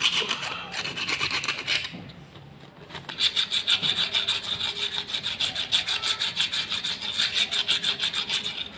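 Emery paper rubbed back and forth on the iron core of a submersible pump starter's contactor, in quick rhythmic scraping strokes, with a short pause about two seconds in before a faster, steadier run. It is scouring off the rust and carbon that make the starter hum.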